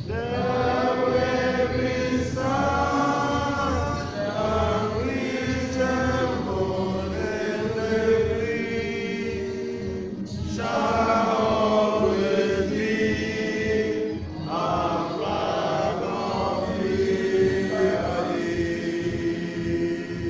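A group of voices singing a chant-like song together, phrase after phrase, with short breaks between phrases about ten and fourteen seconds in.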